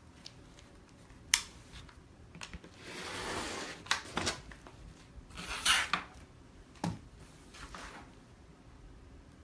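Rotary cutter blade rolling through fabric along an acrylic ruler on a self-healing cutting mat, in two gritty strokes of about a second each. A sharp click about a second in and a few clicks and a knock come from the cutter and ruler being handled.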